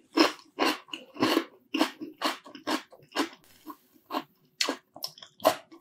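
Close-miked crunchy chewing of raw cucumber slices, a crisp crunch about twice a second.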